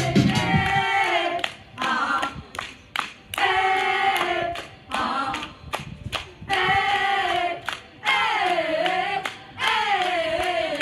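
A small group of girls singing together in short phrases, keeping time with handclaps.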